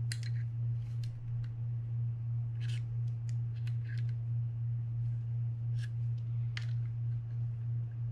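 Small screwdriver tip clicking and scraping against the gears inside an opened Penn Spinfisher 750SSM spinning reel, in short irregular clicks, as a stuck, damaged gear is pried loose. A steady low hum runs underneath.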